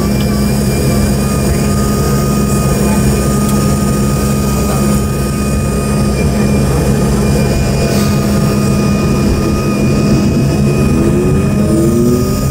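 Loud steady hum with a few high steady whine tones, heard inside the cabin of an Embraer 145. Near the end, rising whines begin as the left Rolls-Royce AE3007 turbofan starts spooling up.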